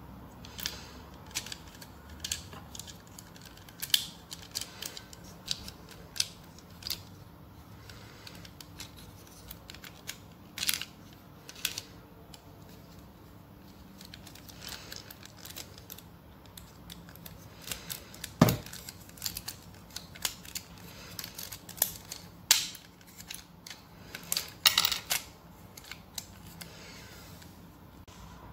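Plastic Lego Technic parts of a rubber-band gun mechanism clicking and clacking as they are handled and worked, a scattered run of sharp clicks with one heavier knock about eighteen seconds in.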